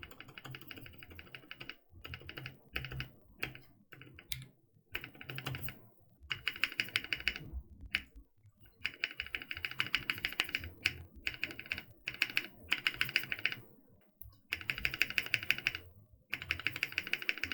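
Typing on a QK65 mechanical keyboard fitted with NovelKeys Cream+ linear switches with silicone inserts. The keystrokes come fast in runs of one to a few seconds, with short pauses between runs.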